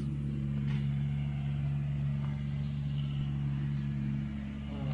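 Steady low drone of an engine running, holding one pitch with no revving.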